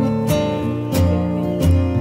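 Background music led by a strummed acoustic guitar, with chords changing over a steady rhythm.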